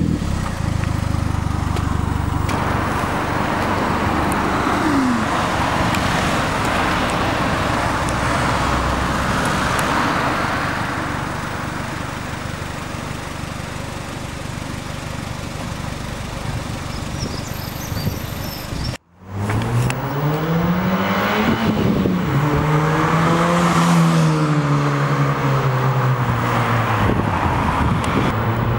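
Mazda MX-5 car sounds with a steady rushing noise for most of the first twenty seconds. After an abrupt cut, the engine and exhaust are heard revving: the note climbs, drops back, holds steady, then rises again near the end.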